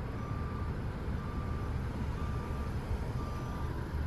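A truck's backup alarm beeping steadily about once a second, four even half-second beeps, over a low engine and road rumble.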